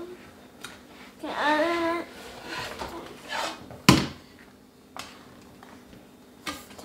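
A sharp clack about four seconds in as the plastic Gooey Louie toy is tipped onto its side on a wooden table, followed by a couple of lighter plastic taps as it is handled.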